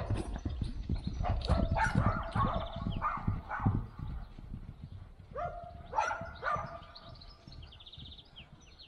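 A dog barking repeatedly in short barks, over low thudding of horse hooves on turf in the first few seconds; a second run of barks comes about two-thirds of the way through.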